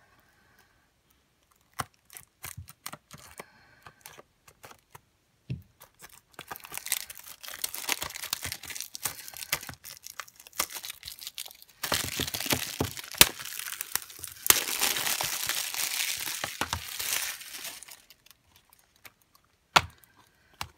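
Plastic shrink-wrap being torn and peeled off a Blu-ray case: a few light clicks at first, then several seconds of crinkling and tearing plastic, loudest in the second half.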